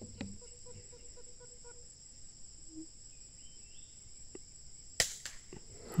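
A steady high buzz of insects, with one sharp report from an air rifle shot about five seconds in.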